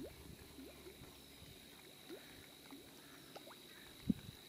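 Quiet stillness with scattered faint short chirping calls, a thin steady high whine, and one sharp knock about four seconds in.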